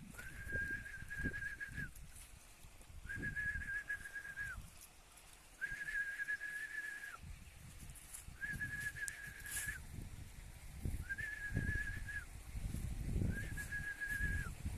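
Six long whistle notes at one steady high pitch, each about a second and a half long and dipping slightly at the end, repeated every couple of seconds as a call to bring animals in. Low irregular rumbling noise runs underneath.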